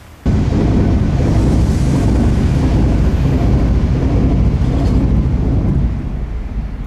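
Electric train passing close by: a loud, steady, deep rumble that begins abruptly about a quarter second in and dies away over the last second.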